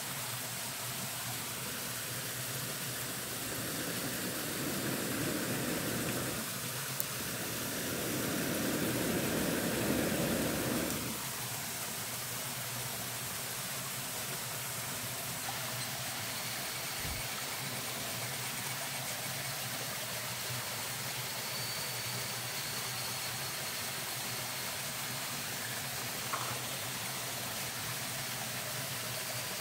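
A small campfire of thin sticks burning, with an occasional faint crackle, over a steady rushing hiss that swells twice in the first ten seconds.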